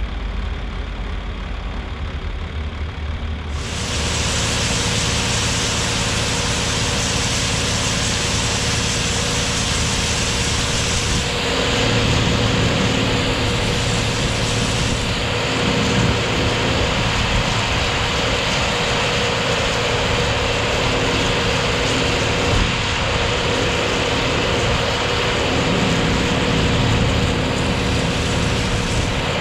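Combine harvester running steadily in the field, a continuous drone of engine and machinery. A broad hiss comes in suddenly about four seconds in, and the engine note gets stronger around eleven seconds.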